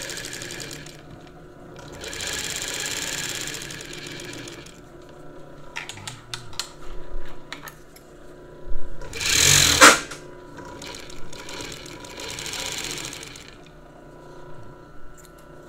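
Late-1940s Merrow A-3DW-3 industrial overlock machine run slowly in short bursts, stitching and trimming the edge of three layers of oiled cloth. A few clicks come about six seconds in, followed by a louder, brief burst of running.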